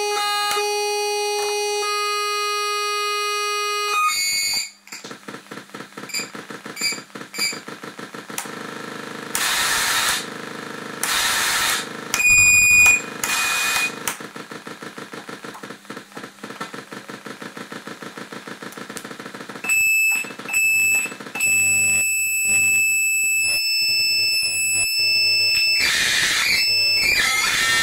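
NDR-113 noise machine built on the SN76477 sound-generator chip, played by flicking its switches. It opens with a steady buzzing tone, which gives way after about four seconds to a fast stream of clicking pulses with bursts of hiss switched in and out. In the last third, high beeping tones cut on and off, and the pitch warbles near the end.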